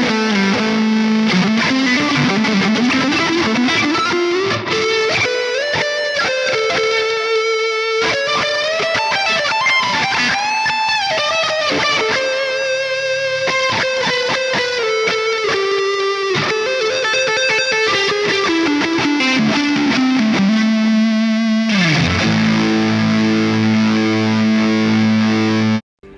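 Electric guitar played through the Neural DSP Mesa Boogie Mark IIC+ amp-modelling plugin with a driven lead tone. It plays a flowing line of single notes with string bends and vibrato, settles on a long held low note about 22 seconds in, and cuts off suddenly near the end.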